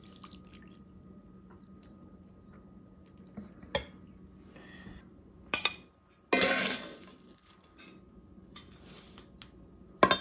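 Serving utensils clinking and scraping against a plate and a cast-iron skillet as food is dished up: a few sharp clinks and one scrape of about a second just past the middle.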